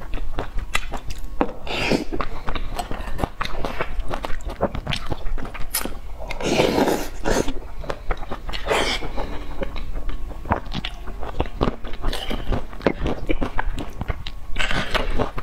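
Close-miked chewing and wet mouth clicks of someone eating saucy rice and braised eggplant from a spoon, with a few louder, longer mouth noises about two, seven and nine seconds in.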